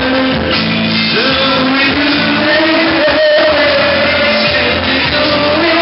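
A man singing karaoke into a handheld microphone over a loud backing track, holding long sustained notes.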